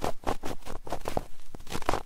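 Close-up ASMR trigger sounds on a 3Dio binaural microphone: a quick, irregular run of scratchy crackles and crunches, several a second.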